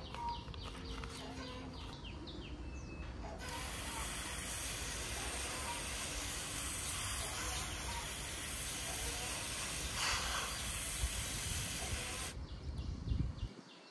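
A steady, even hiss that starts a few seconds in and cuts off sharply near the end, with birds chirping before and after it.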